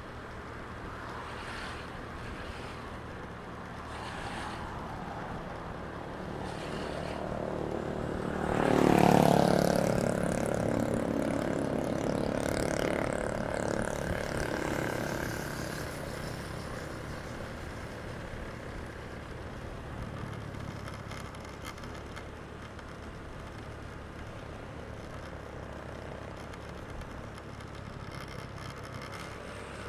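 Steady rush-hour road traffic heard from the roadside. One vehicle passes close about nine seconds in, the loudest moment, its engine note dropping in pitch as it goes by, then fading over the next several seconds.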